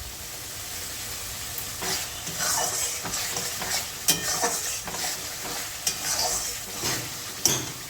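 Spatula stirring and scraping a thick spice paste frying in hot oil in a pan, over a steady sizzle. The masala is being fried down until the oil separates.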